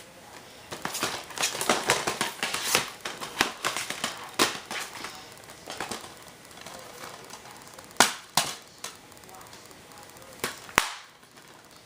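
Plastic clicks and clacks of a VHS cassette being handled and loaded into a VCR: a quick run of small clicks over the first few seconds, then a few single clicks, the loudest with a low thump near the end.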